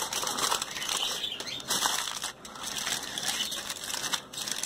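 Heavy-duty aluminium foil being crumpled and twisted shut by hand to seal a food parcel: a continuous crinkling crackle, with a brief lull about two seconds in.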